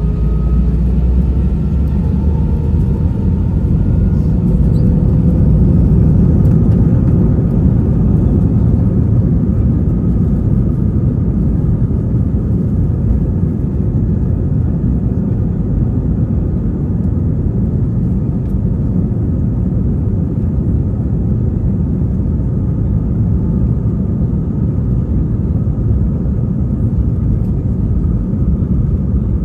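Airbus A320 jet engines heard from inside the cabin at high power during takeoff: a loud, steady rumble, with engine whine tones rising in pitch over the first few seconds and then holding steady.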